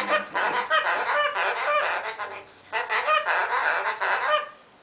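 Lorikeet screeching and chattering: a rapid run of harsh squawks and short bending chirps in two bursts, with a brief break about two and a half seconds in.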